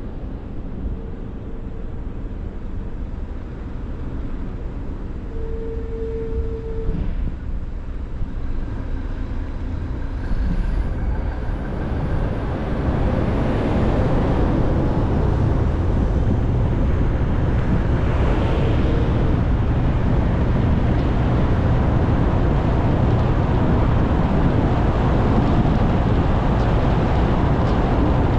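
A moving car's road and engine noise: a steady low rumble with tyre hiss that grows louder and fuller about twelve seconds in.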